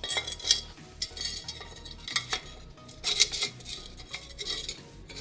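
Stick-welding electrode scratched and tapped against steel to strike an arc from a solar-panel DC supply: short, irregular metallic scrapes and crackling spurts, several in a row. The arc sparks but does not hold to lay a weld.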